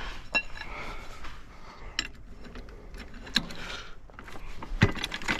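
Scattered clinks and knocks of metal hand tools being handled, with a brief ringing clink about a third of a second in and the loudest knock near the end.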